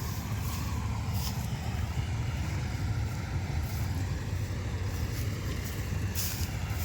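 John Deere combine harvester running steadily, a constant low engine rumble with a few brief high hissing streaks over it.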